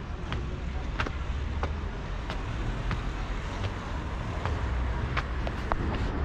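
Footsteps climbing stairs, about one step every two-thirds of a second, over a low steady rumble.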